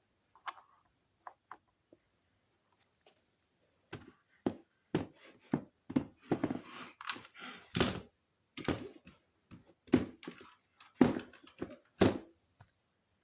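Keys of a Mad Dog computer keyboard being pressed: a few light, scattered clicks, then from about four seconds in a quick, uneven run of heavier key strikes that ends shortly before the close.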